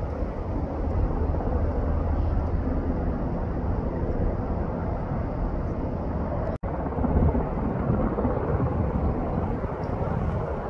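Helicopter's rotor and engine noise heard from a distance as a steady low drone while it makes a water-bucket drop on a wildfire. The sound cuts out for an instant about two-thirds of the way through.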